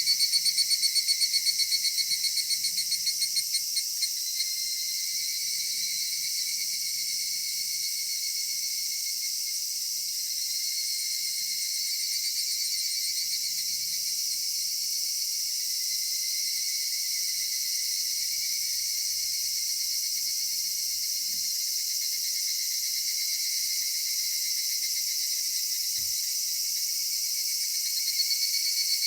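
Cicadas singing in chorus: a steady high-pitched drone, with one louder call pulsing several times a second at the start that fades out after about four seconds, and another pulsing call starting up near the end.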